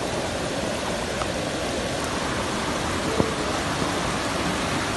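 Muddy floodwater rushing through and over a reservoir spillway in a steady torrent: the reservoir is overflowing. One faint click about three seconds in.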